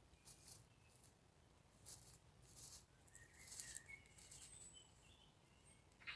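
Near silence broken by faint, short rustles or scratches, with a few faint high bird chirps in the middle.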